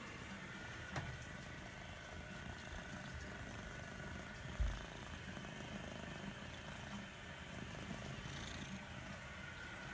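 Domestic cat purring steadily and faintly, as a low rumble, while its head is stroked. There is a small click about a second in and a brief low bump about halfway through.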